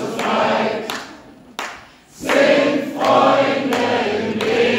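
Live acoustic band music: a violin bowed over acoustic guitar, with many voices singing together. The music drops away briefly a little before the middle, then comes back in.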